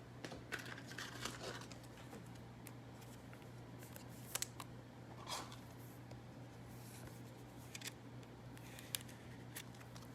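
Faint rustling and light clicks of trading cards being handled and slid through the hands, over a steady low electrical hum.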